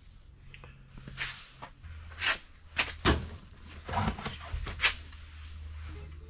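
Sharp metal clicks and knocks, about half a dozen in a few seconds, from a torque wrench and socket being fitted and worked on the crankshaft nose of a bare engine block while checking breakaway torque and rolling resistance.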